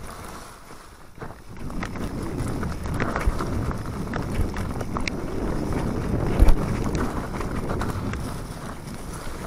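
Mountain bike rolling fast down a dirt trail covered in dry leaves: tyre noise over leaf litter and dirt with rattles and clicks from the bike, and wind buffeting the microphone. The noise builds about a second and a half in, and one heavy knock comes about six and a half seconds in.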